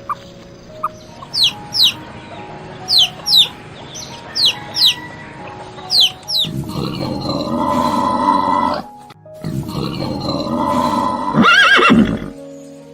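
A horse neighing twice, long harsh calls, the second ending in a wavering whinny near the end, over background music. Before it, a run of quick high falling chirps in pairs.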